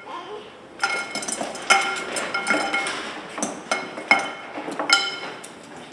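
A run of bright, pitched clinks, each ringing briefly and dying away, struck unevenly about two times a second.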